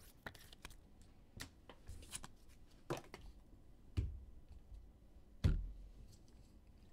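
Trading cards in rigid plastic top-loaders being handled and set down on a table: scattered clicks and taps, with a heavier thump about five and a half seconds in.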